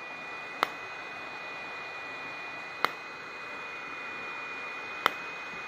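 Home IPL (intense pulsed light) hair-removal handset on automatic mode, firing a flash with a short sharp click three times, about every two seconds, over the steady whine of its cooling fan.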